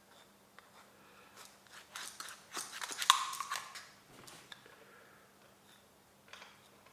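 Small plastic and metal parts of a gel blaster gearbox being handled: a run of clicks and scrapes about two to four seconds in, the loudest a sharp click followed by a short squeak near the middle.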